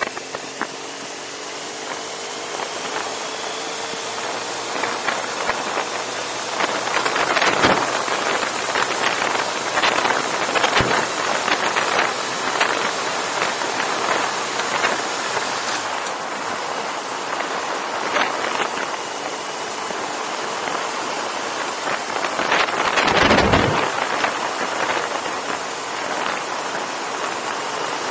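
Wind rushing over the microphone of a motorcycle at road speed, with the motorcycle's engine faintly under it, its note slowly rising in pitch. Two stronger gusts of wind buffet the microphone, one about a quarter of the way in and a louder one about four-fifths of the way through.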